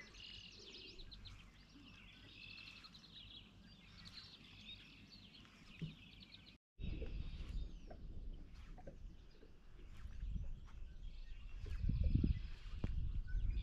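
Small birds chirping and singing over faint outdoor ambience. About two-thirds of the way through, after a brief dropout, a louder low rumbling noise takes over, swelling near the end, with a few bird calls still in it.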